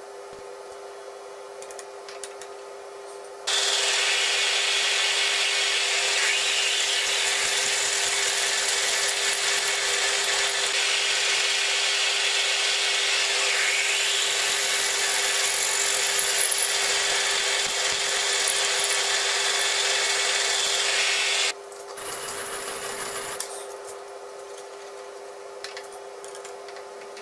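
Drill press motor humming steadily while a twist drill cuts into a round metal workpiece: loud cutting noise starts suddenly about three and a half seconds in and stops suddenly about 21 seconds in, leaving the motor hum.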